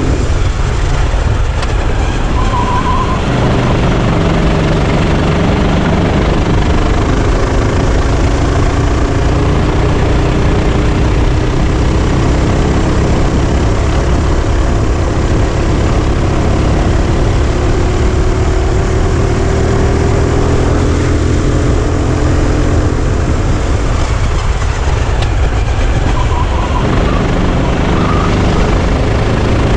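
Sodi RT8 kart's engine running at speed, heard from on board under heavy wind and road noise. Its pitch climbs slowly for a long stretch, falls about two thirds of the way through, then climbs again.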